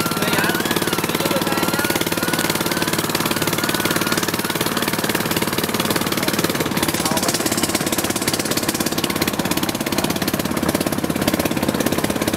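Small engine of a bamboo train (norry) running steadily under way, a fast even chugging that drives the platform along the rails.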